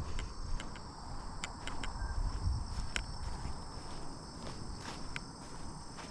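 Footsteps on a path, with a steady high chorus of insects, such as crickets, running underneath.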